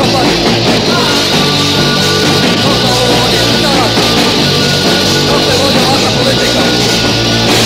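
Loud, dense 1980s anarcho and noise punk recording: a full band playing continuously, with held notes over a steady, driving bass.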